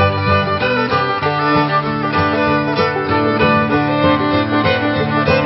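Instrumental background music led by a fiddle-like bowed string, with plucked strings underneath.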